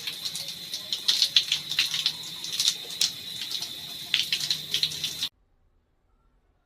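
Water spraying steadily from a shower head fed by an electric instant water heater, with a spattering hiss. It cuts off abruptly about five seconds in, leaving near silence.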